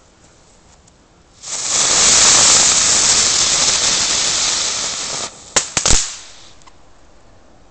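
Firework ground spinner burning with a loud hiss for about four seconds, then a quick run of three or four sharp cracks, the last one loudest.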